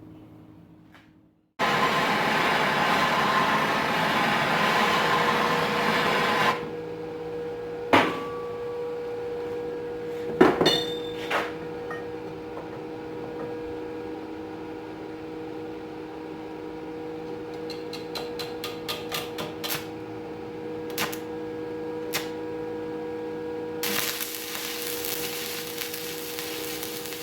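Workshop sounds while forging: a loud steady rushing noise, then a steady humming with scattered light metallic clinks and knocks, including a quick run of small clicks, before the rushing noise returns.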